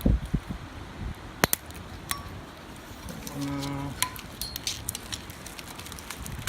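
Sharp clicks and metallic clinks of needle-nose pliers working plastic wiring connectors loose on an LS1 transmission. There are a few handling thumps at the start, and the clicks come thick and fast in the second half. A brief low tone sounds a little past the middle.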